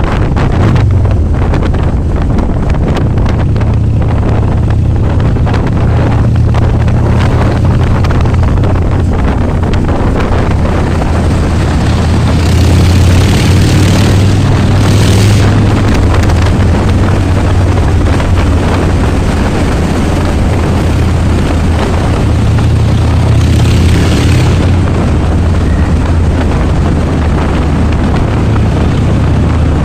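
Harley-Davidson Dyna's V-twin engine running under way in a tunnel, with a loud, steady rumble from the exhaust. A rushing hiss swells up twice over the rumble.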